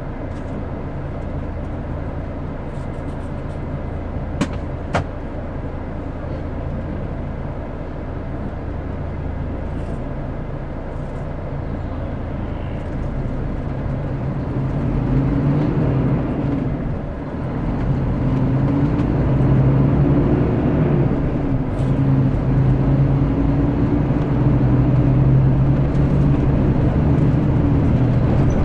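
Mercedes-Benz O-500RS coach's diesel engine heard from on board, running steadily at first and then pulling louder from about halfway, with a brief dip in between. Two sharp clicks come about four and five seconds in.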